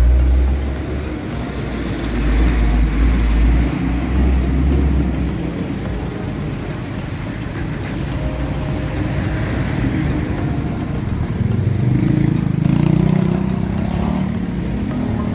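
Riding a Honda CB650R inline-four motorcycle through heavy traffic: the engine running amid surrounding road traffic, with wind rumble on the microphone in the first few seconds. About twelve seconds in it gets louder, with a brief hiss.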